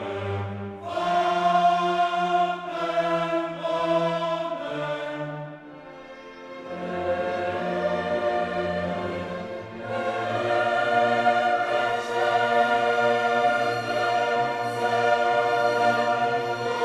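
Classical choral music: a choir singing held notes with an orchestra, softening briefly about six seconds in before swelling again.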